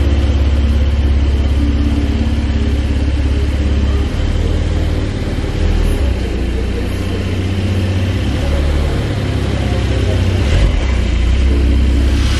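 Porsche 911 Carrera 4S twin-turbo flat-six engine running at idle, a steady low note from the exhaust that shifts slightly about four seconds in and again near ten seconds.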